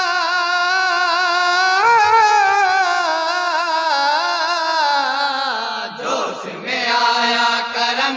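A man singing a naat with no instruments, holding one long wavering note for about five seconds, then going on into a new phrase.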